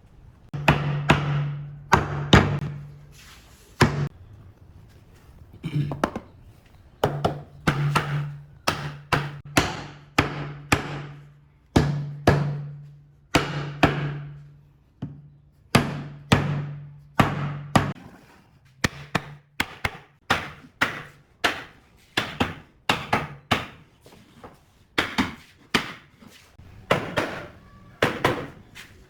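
Irregular hammer blows on wood in a workshop, sharp knocks that each ring briefly, sometimes in quick pairs or runs, with a low steady hum under the first two thirds that stops about eighteen seconds in.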